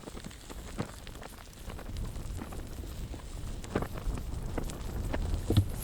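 Low rumbling wind noise on the microphone that grows louder about two seconds in, with a few scattered sharp cracks, the loudest near the end.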